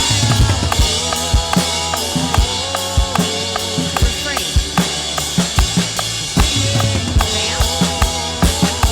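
Drum kit playing a steady rock beat of kick drum, snare and cymbals along with a full worship-band track, with sustained bass and a wavering melody line over it.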